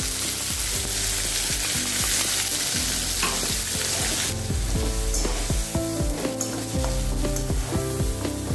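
Coarse green paste frying in hot oil with panch phoron and chili in a metal wok, sizzling loudly. The sizzle eases about four seconds in while a spatula stirs and scrapes the pan.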